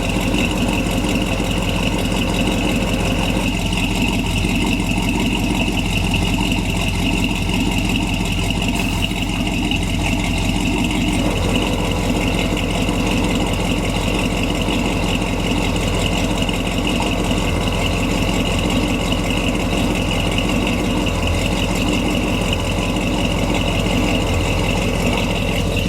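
1966 Chevy pickup's engine idling steadily, with a steady high-pitched whine running above it. A middle layer of the sound drops away about three and a half seconds in and comes back about eleven seconds in.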